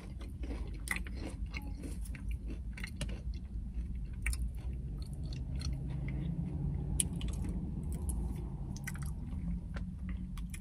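A person chewing popcorn close to the microphone, with irregular soft crunches and clicks; the chocolate-glazed popcorn has a soft, not very crunchy texture.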